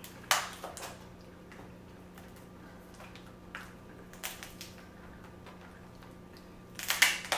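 Cooked lobster shell crackling and squishing as it is pulled apart by hand, in scattered clicks with a sharp one just after the start and a louder cluster near the end, over a faint steady low hum.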